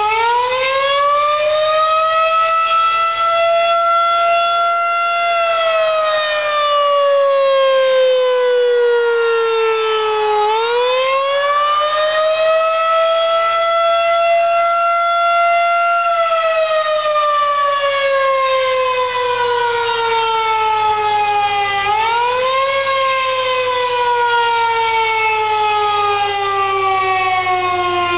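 Federal Signal 2001 DC tornado siren sounding, loud and steady. Its pitch climbs over a few seconds, holds, then slides slowly back down. This happens twice, and a third, shorter rise comes about two-thirds of the way through.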